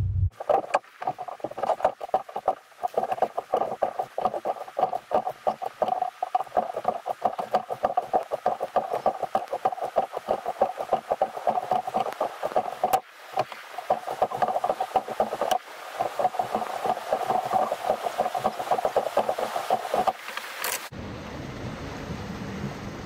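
Water lapping and dripping around a rowed oar raft, a dense, irregular patter of small splashes. About 21 s in it cuts to the steady roar of whitewater from Lava Falls rapid just ahead.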